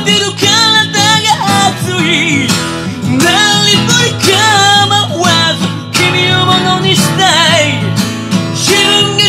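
A man singing a Japanese rock song over a backing track with guitar, with long wavering notes about two seconds in and again about seven seconds in.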